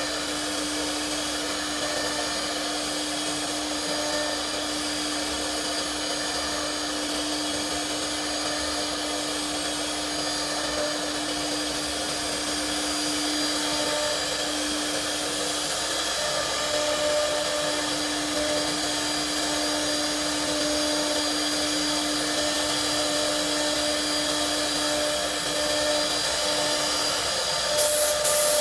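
CNC router spindle running steadily: a constant whine over a hiss, with a couple of sharp clicks near the end.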